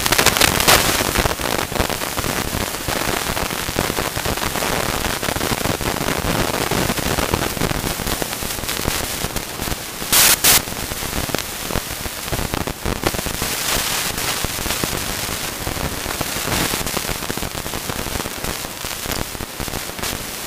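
Mountain bike rolling fast down a dirt forest trail: a constant crackling rattle of the bike over the rough ground under a steady rushing noise, with a short loud burst about ten seconds in.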